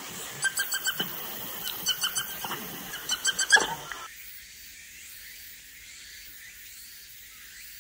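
Short, high-pitched animal calls in quick runs of four or five, three runs in all. About four seconds in, the sound cuts off abruptly, leaving only a faint hiss.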